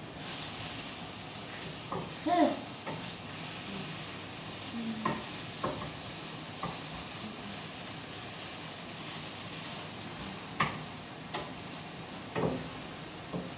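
Eggplant frying in a pan with a steady sizzle, while a utensil stirs it and knocks against the pan several times.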